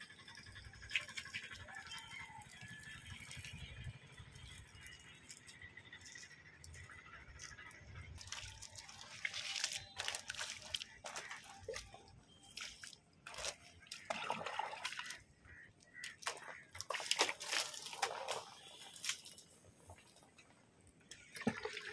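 Water poured from a small plastic jar, splashing and dripping onto fresh cement plaster as it is wetted to cure. The splashes come in irregular bursts, mostly in the second half.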